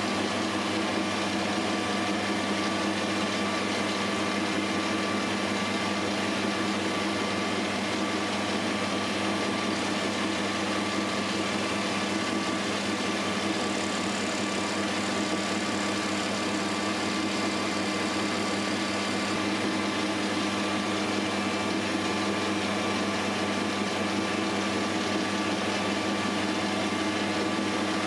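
Mini metal lathe running at a steady speed with its three-jaw chuck spinning: an even motor and drive hum with several held tones.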